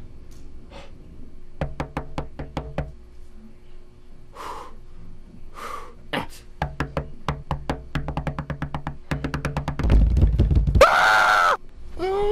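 A fist knocking hard on a wooden door in rapid runs of blows, with two short breathy vocal sounds between the runs. Later comes a longer, faster flurry of knocks, and about ten seconds in a loud drawn-out yell.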